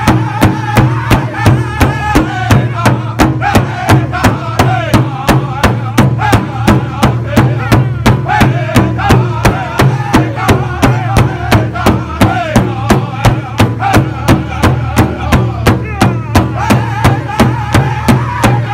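Powwow drum group at a large shared hide drum, several padded beaters striking in unison in a steady even beat of about two and a half strokes a second. High-pitched group singing carries over the drum.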